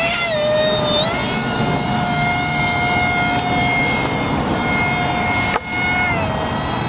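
Electric motor and propeller of a radio-controlled model airplane whining steadily in flight, its pitch rising about a second in and dropping near the end. It dips briefly about two-thirds of the way through.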